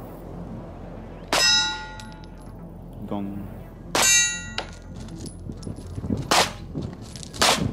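Four 9mm pistol shots from a Walther PPS, spread over several seconds. The first two are each followed by the ringing of a struck steel target.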